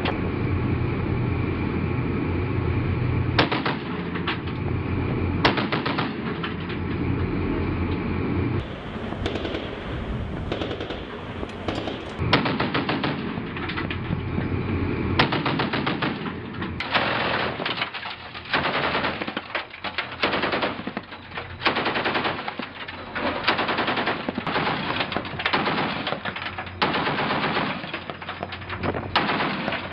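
Ship-mounted M2 .50-calibre heavy machine gun firing. At first a few isolated shots come over a steady rumble, then short rapid bursts repeat every second or two through the second half.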